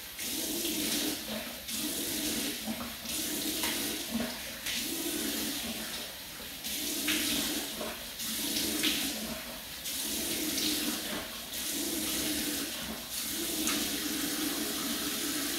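Bathroom faucet running steadily into the sink while hands scoop and splash water onto the face, a splash returning about every second and a half.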